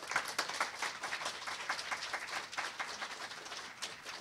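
Audience applauding, many hands clapping, slowly thinning out toward the end.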